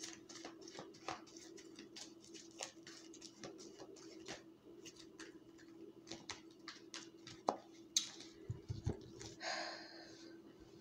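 Tarot cards being shuffled and drawn by hand: faint, scattered flicks and clicks of the cards over a steady low hum, with a short rustle near the end as cards are laid down.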